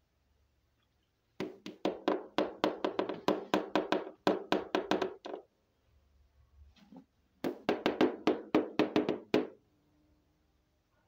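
Two runs of rapid knocking, about five or six sharp knocks a second. The first run lasts about four seconds, the second, after a short pause, about two.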